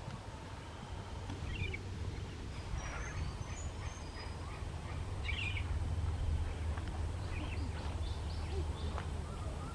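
A few short bird calls and brief high chirps at scattered moments, with the clearest call about halfway through, over a steady low rumble.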